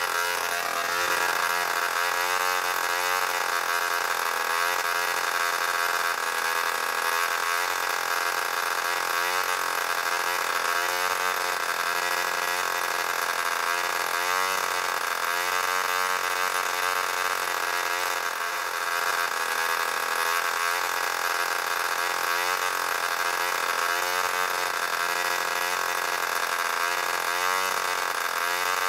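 A small model aircraft engine running steadily on a test stand, turning its propeller with a high-pitched buzz whose speed wavers slightly every second or so.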